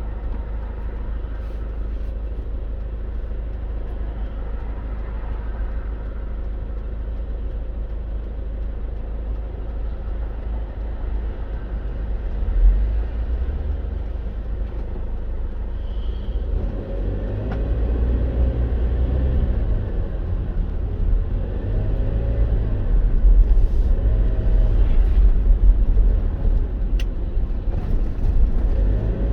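Moving vehicle on the road: a steady low rumble of engine and tyre noise. Past the middle it grows a little louder and the engine note shifts up and down.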